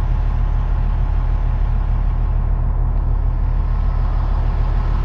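A vehicle engine idling: a steady, even low hum.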